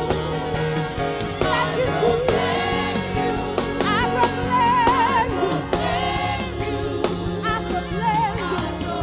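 Live gospel worship music: a singer's wordless, sustained vocal runs with heavy vibrato over a band's held chords, bass notes and drum hits.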